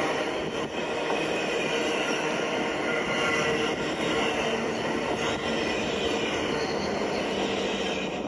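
LEGO train running past close by on plastic LEGO track: a steady running noise of the motor and wheels, with a faint whine through it.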